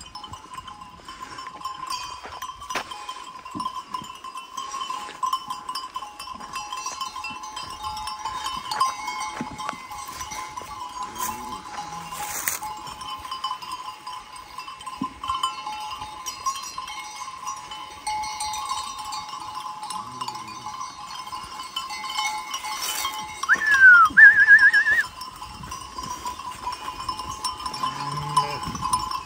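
A flock of sheep on the move, with sheep bells ringing steadily. About three quarters of the way through, one sheep gives a loud bleat that falls in pitch and then wavers.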